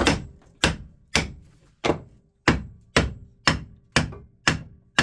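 Steady hammer blows on metal, about two a second, each with a short metallic ring: a small steel-laminated transformer being knocked apart with a hammer and a screwdriver to get at its copper windings.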